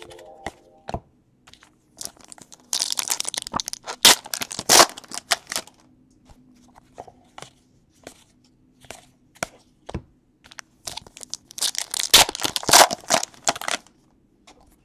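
A stack of baseball trading cards handled in the hands, the cards slid and flipped against one another, rustling and crinkling in two spells, about three seconds in and again near the end, with scattered light clicks between.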